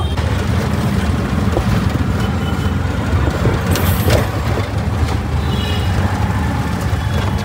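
Auto-rickshaw engine running with a steady low rumble on the move, with a brief hiss about four seconds in.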